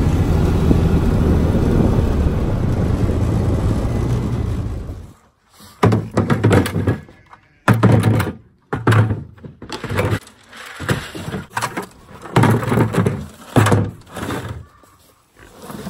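A utility vehicle running and driving, a steady low engine and ride noise, cuts off about five seconds in. A string of hollow thunks and clatters follows as empty plastic five-gallon buckets are knocked together and nested on the vehicle's bed.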